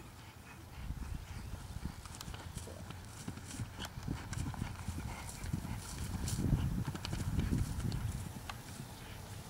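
Thoroughbred horse's hooves thudding on grass turf at a canter, taking off and landing over a small jump, a run of dull beats that starts about a second in and is loudest a little after the middle.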